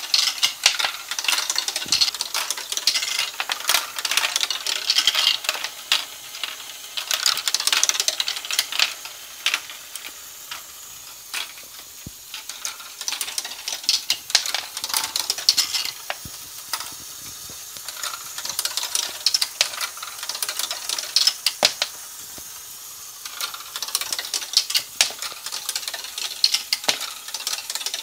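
Lego Great Ball Contraption tower module running: small plastic balls and Lego parts clattering and clicking rapidly. The rattling comes in busy spells that die down several times to a quieter ticking.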